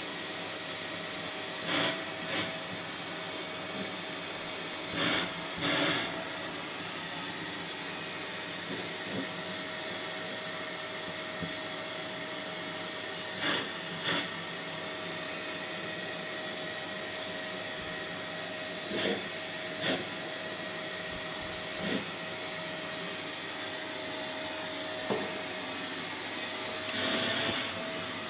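Household vacuum cleaner running steadily with a high whine, used to groom a Maine Coon cat's fur. About ten brief louder rushes come and go.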